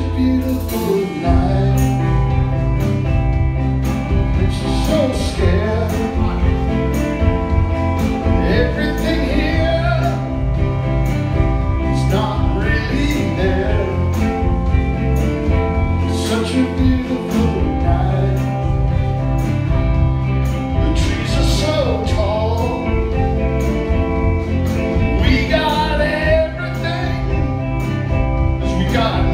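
Live rock band playing with electric guitar, electric bass and a drum kit keeping a steady beat.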